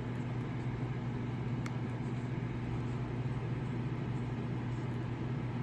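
Steady low hum with a noisy rumble under it, unchanging throughout, with a faint tick about a second and a half in.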